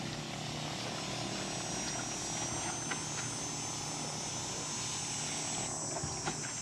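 Battery-powered backpack sprayer running: a steady electric pump hum with the hiss of a fine mist from the spray wand. The spray hiss stops near the end as the wand is released.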